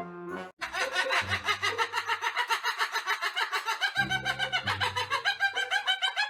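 Rapid, unbroken laughing: a long run of quick cackling pulses, about nine a second, starting about half a second in.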